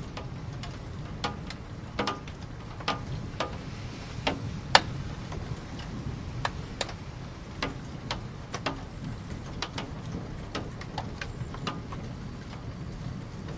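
Raindrops dripping irregularly onto a hard surface: sharp ticks, about two a second and uneven in loudness, over a steady low rumble.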